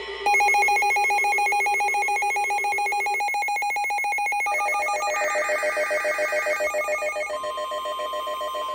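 Electronic alert tones from a weather radio broadcast: a rapidly pulsing, ringing multi-tone alarm that shifts pitch pattern twice, then a single steady tone near 1 kHz from about seven seconds in, typical of the NOAA Weather Radio warning alarm tone.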